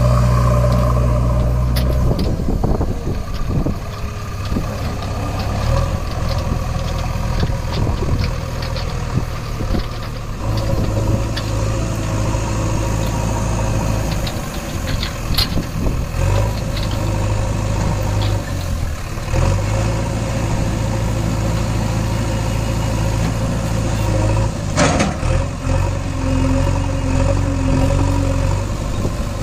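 Engine sound effect of a heavy vehicle idling: a steady low drone that steps up and down in level every few seconds. Scattered light clicks and scrapes, likely soil and the plastic loader bucket, run over it, with one sharper knock near the end.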